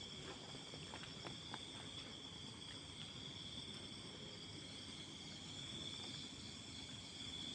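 Night insects, crickets or similar, trilling as a steady high-pitched chorus, with a few faint clicks in the first couple of seconds.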